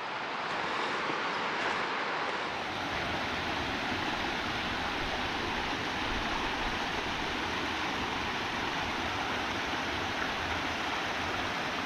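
Small mountain creek cascading over rocks, a steady rush of water.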